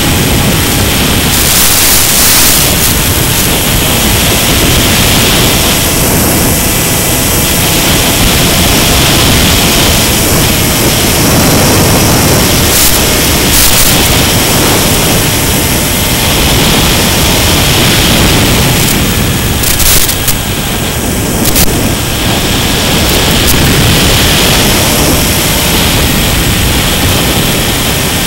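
Loud, steady hiss of noise with faint thin whining tones drifting slightly in pitch. Brief crackles come around two seconds in, again near the middle, and twice about two thirds of the way through.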